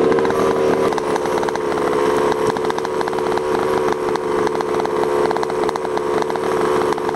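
Ported 30.5cc Zenoah two-stroke gas engine of a 1/5-scale Losi 5T RC truck idling steadily, with a rapid even firing rattle.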